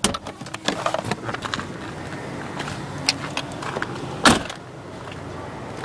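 Clicks and rattles of a car key being handled, then a single loud thump about four seconds in as the door of the 1990 BMW 318i is shut.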